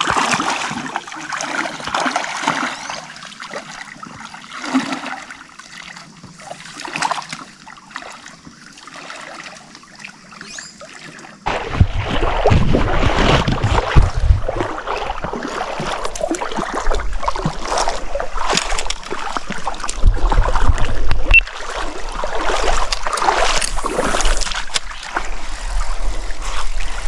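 Water splashing and sloshing as people wade through a shallow river. About eleven seconds in, it turns suddenly louder, with a low rumble underneath.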